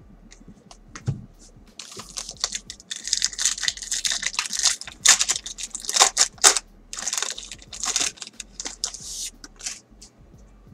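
Foil wrapper of a Bowman's Best baseball card pack being torn open and crinkled by hand. It starts about two seconds in as a dense, crisp crackle of many short ripping and rustling sounds, then stops shortly before the cards come out.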